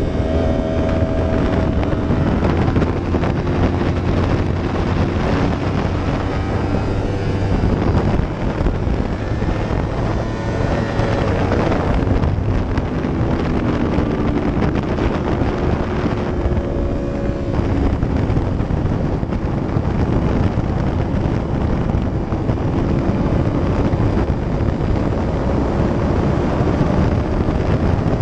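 Inline-four engine of a 2015 Yamaha YZF-R1 motorcycle running under way, its pitch shifting up and down through the bends, with heavy wind noise on the windscreen-mounted camera's microphone.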